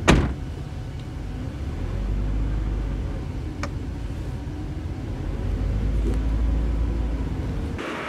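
A car door shuts with a single loud thump, then the car's low engine and road rumble as it drives away, swelling and easing twice before it stops near the end.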